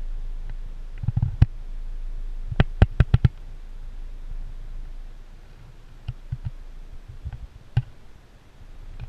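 Sharp clicks and knocks over a steady low rumble: a few about a second in, a quick run of five between about two and a half and three and a quarter seconds in, and scattered ones later.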